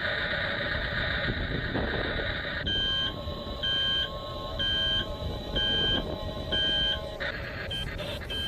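Radio-controlled construction model running with a steady whirring noise, then from about three seconds in its reversing alarm beeps five times, about once a second.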